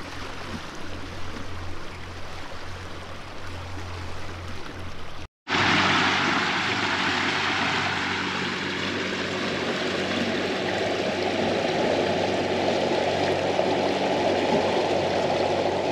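Water rushing along the hull of a small houseboat under way, over the steady low hum of its motor. About five seconds in, a cut brings a louder, fuller rush of water.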